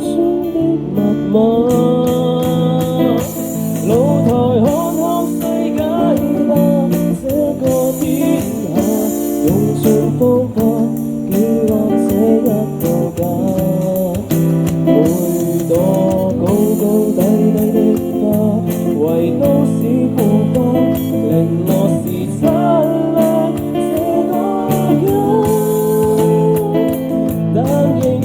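Live band playing a Cantonese pop song: guitar accompaniment with a singer's voice carrying the melody.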